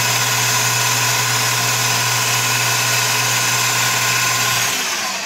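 Small Enco benchtop metal lathe running steadily with a motor hum as its chuck spins, turning down a pop rivet. About four and a half seconds in the motor is switched off and the sound starts to die away.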